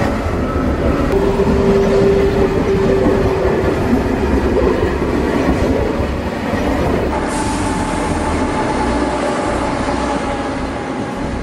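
Korean high-speed electric trains running past station platforms: a steady rumble of wheels on rail with a faint steady whine. The sound changes abruptly about a second in and again about seven seconds in, as one train clip cuts to the next.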